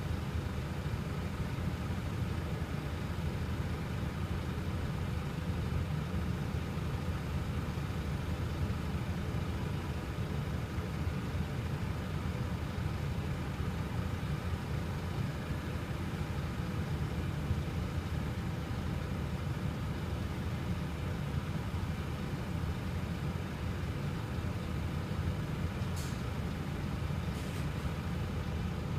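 Diesel engines of parked coaches idling: a steady low rumble, left running while the coaches stand still. Two brief high hisses near the end.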